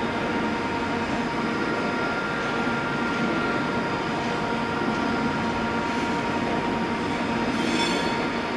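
Avanti West Coast Class 390 Pendolino electric train running slowly into the platform with a steady hum, and a brief high squeal from the wheels or brakes near the end.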